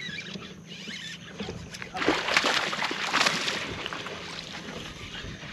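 Hooked largemouth bass thrashing and splashing at the water's surface beside the boat, a loud burst of splashing starting about two seconds in and lasting about a second and a half.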